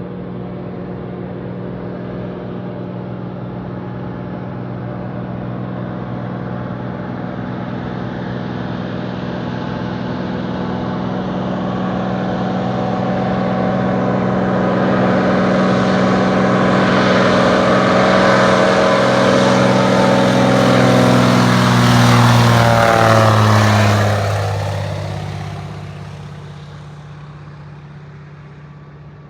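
A floatplane's piston engine and propeller passing close by: the engine drone builds steadily for over twenty seconds, drops in pitch as the plane goes past about 23 seconds in, then fades away.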